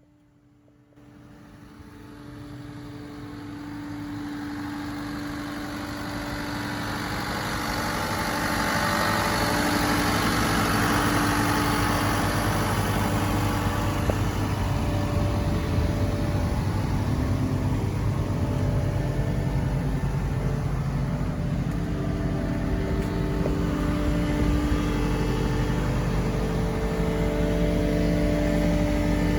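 Caterpillar 299D2 XHP compact track loader's diesel engine running. It comes in about a second in, grows louder over the next several seconds, then holds steady.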